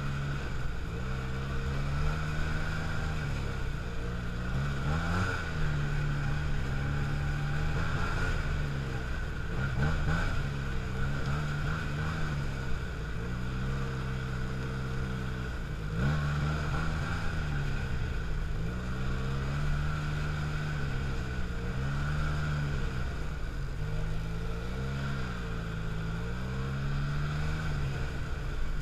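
Snowmobile engine running under way, its pitch rising and falling every couple of seconds as the throttle is opened and eased along the trail, with steady rushing wind noise on the microphone.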